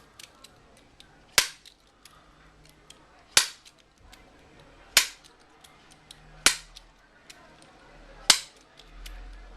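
A bump key being struck in a pin tumbler lock: five sharp knocks about one and a half to two seconds apart, with light clicks between them as the key is reset. The lock does not open with this key.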